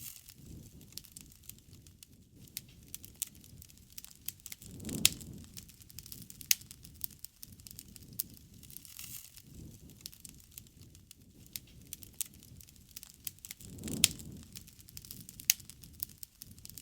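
Wood campfire burning: irregular crackles and pops over a low rumble, with two louder pops about five seconds in and again near fourteen seconds.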